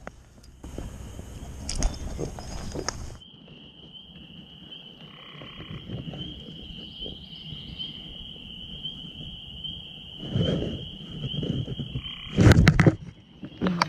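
A frog trilling: one long, steady high trill lasting about nine seconds. A burst of rustling noise comes before it, and loud knocks or handling bumps come near the end, the loudest just before the trill stops.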